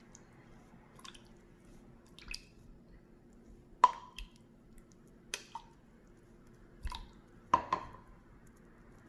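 A handful of small sharp taps or plinks, each with a brief ring, spread a second or more apart, as the cake layers are soaked with syrup; the loudest comes about four seconds in, with a quick pair near the end.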